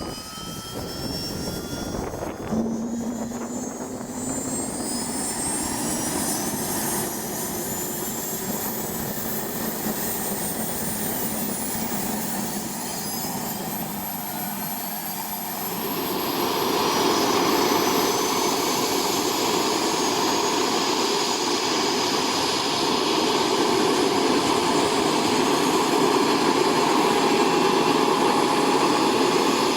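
Agusta Caweel CW-86 aircraft's turbine engine spooling up: thin whines climb steadily in pitch for the first dozen seconds. About halfway through the running sound swells louder and fuller, then holds steady.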